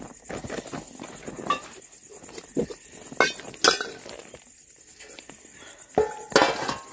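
A tent bag being packed and tied shut by hand: rustling with scattered sharp clinks, two crisp ones around the middle, and louder handling noise near the end.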